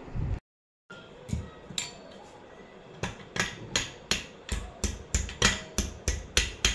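Sharp metal-on-metal blows from tapping with a hand tool on the chrome column and seat plate of a bar stool. After a few lighter knocks, a steady run of about a dozen strikes starts about halfway through, roughly three a second, each with a brief metallic ring.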